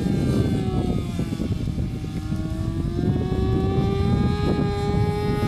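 A 10 cc nitro glow engine on a Depron RC plane, running in flight. Its high buzzing note falls over the first two seconds, then rises again and holds steady.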